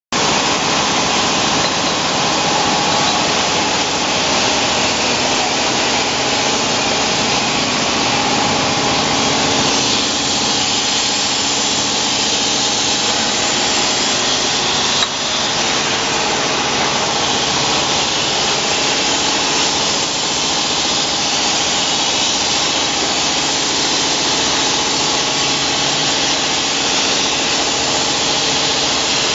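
Glass-bottle beer filling line running: steady machine noise, mostly hiss, with a faint hum of steady tones beneath, and one sharp click about halfway through.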